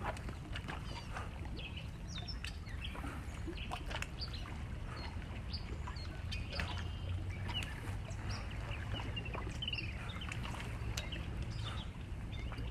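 Birds chirping and calling in short, repeated notes over a steady low rumble.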